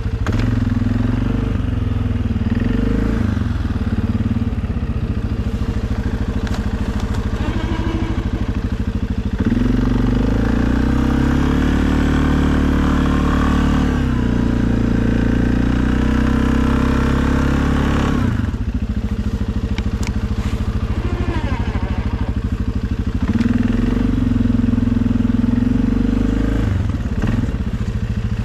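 Suzuki KingQuad ATV engine running under load while plowing snow. It revs up for several seconds around the middle and again briefly near the end, settling back to a lower speed in between.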